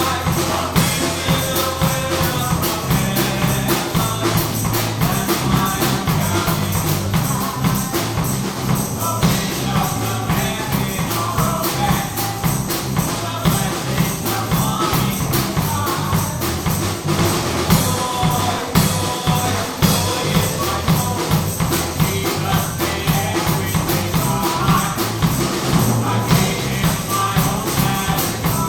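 Upbeat gospel song played by a church band, with a steady driving beat, a strong bass line and percussion, and voices singing along.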